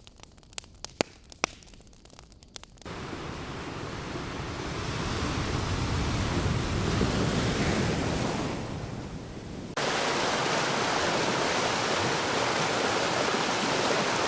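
A fire crackling with sparse sharp pops, then a wave of surf washing in about three seconds in: it swells and falls back. Near ten seconds a steady, even rush of falling water cuts in.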